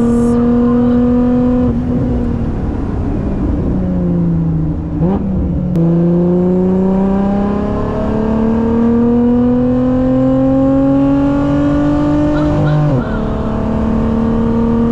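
Lotus Emira's supercharged V6 with an aftermarket exhaust, accelerating hard and revving up through the gears. The pitch climbs steadily and drops sharply at upshifts about 2 s in and near the end, with a brief lift and dip around 4 to 5 s in.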